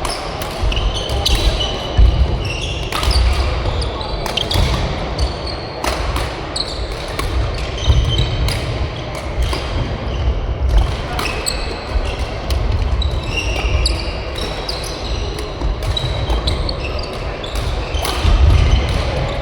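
Badminton play in a sports hall: shoes squeaking on the court floor, sharp racket hits on the shuttlecock and thudding footfalls, in a steady run of short squeaks and hits.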